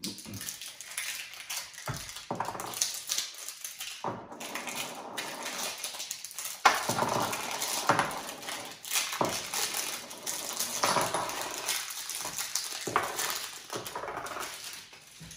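Plastic wrapping crinkling as a roll of backgammon checkers is unwrapped, with the checkers clicking and clattering against each other as they are tipped out onto the board.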